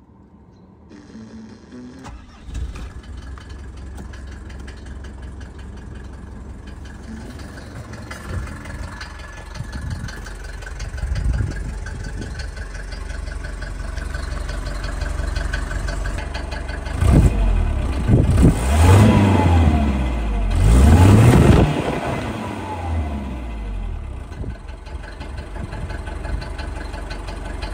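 Mercedes W124 200D's naturally aspirated 2.0-litre four-cylinder diesel starting a couple of seconds in and idling steadily. About two-thirds of the way through it is revved up and down several times, then it settles back to idle.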